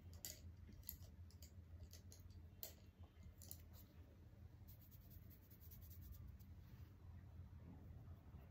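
Faint, scattered clicks and light taps of makeup products and brushes being picked up and handled, over a low steady room hum.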